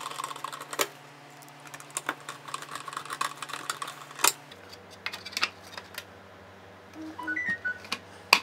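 Screwdriver driving a small screw into 3D-printed plastic engine parts: a run of light clicks and ticks with a few sharper knocks, over a low steady hum.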